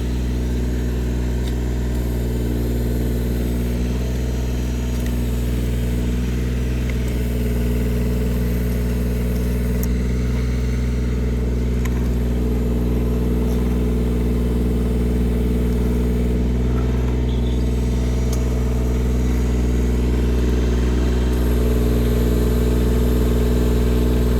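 Engine of a hot-tar crack sealing machine running steadily at a constant speed, growing slightly louder toward the end, with a few faint ticks over it.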